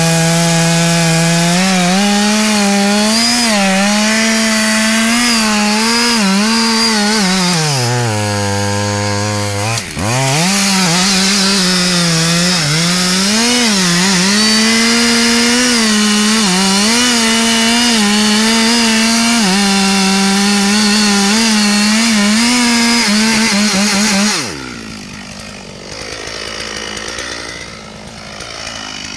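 Two-stroke chainsaw cutting into a big tree trunk to fell it, its pitch wavering as the bar loads up in the wood. About eight seconds in the engine drops low for a couple of seconds, then revs back up into the cut. A few seconds before the end the saw sound cuts off to a much quieter level.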